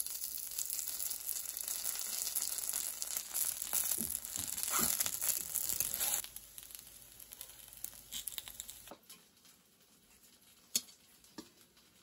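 Slices of jeolpyeon rice cake sizzling in oil on a hot griddle pan, a dense crackle that is loudest for the first six seconds and then fades to a softer sizzle. A single sharp click comes near the end.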